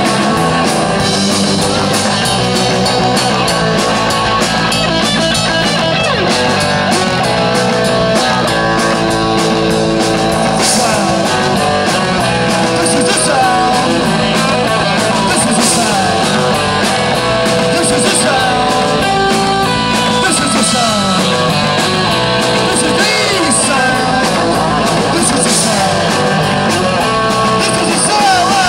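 Rock band playing a punk song live, loud and steady: an instrumental stretch with electric guitar to the fore.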